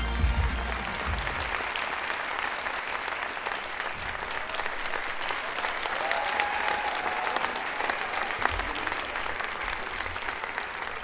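Audience applauding, dense steady clapping. It comes in as the performance music cuts off at the start, with the music's low end dying away over the first second or so.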